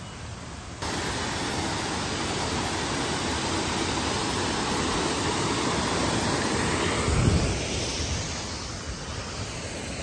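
Waterfall rushing: a steady, even noise of falling water that starts abruptly about a second in. A brief low thump comes about seven seconds in.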